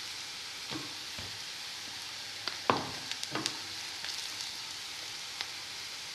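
Onions and curry leaves sizzling in coconut oil in a pan, with a spatula stirring and knocking against the pan. The two loudest knocks come about two and a half and three and a half seconds in.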